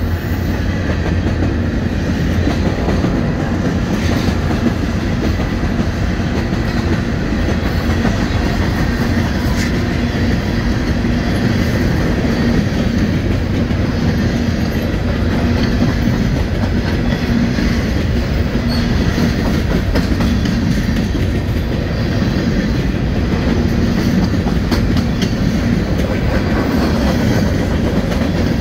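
Freight train's covered hopper cars rolling past: a steady rumble of steel wheels on rail, with clickety-clack over the rail joints.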